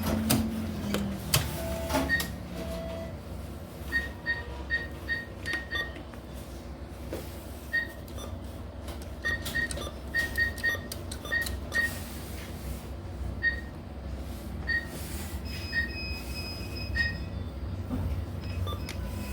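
ATM keypad beeping with each button press: short high beeps in quick, irregular runs, over a steady low hum.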